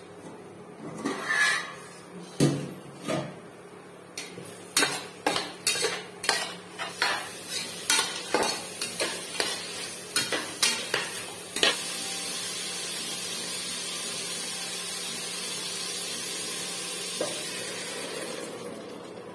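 A spatula stirring vegetables in an aluminium pressure-cooker pot, knocking and scraping against the metal about twice a second. After that, a steady sizzling hiss of frying.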